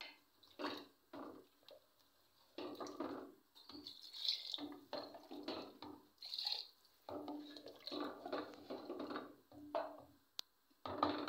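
Water poured from a plastic bowl into a pot of curry, splashing in several separate pours, with a wooden spoon stirring through the liquid.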